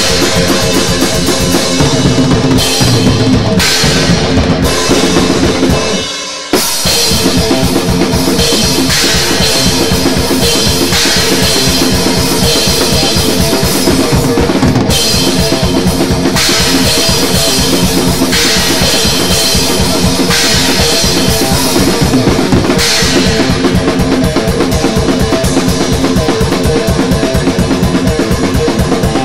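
Thrash metal played on electric guitar and drum kit: guitar riffing over rapid, dense drumming with kick and snare. The band drops out briefly about six seconds in, then comes back in at full force.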